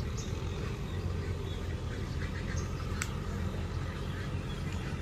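Farm tractor's diesel engine running as it works a field: a steady low rumble.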